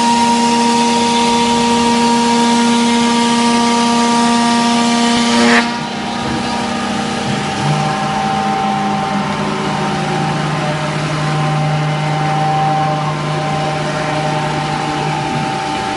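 CNC router's 7.5 HP spindle running with a steady whine while cutting melamine-faced 18 mm MDF, with a wide hiss of cutting noise. About five and a half seconds in, the cutting noise drops away abruptly and the machine keeps running more quietly. A lower steady hum comes in a couple of seconds later and stops shortly before the end.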